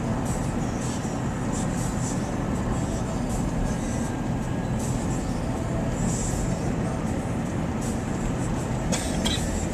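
Steady low rumble of a vehicle driving, with a few faint ticks about nine seconds in.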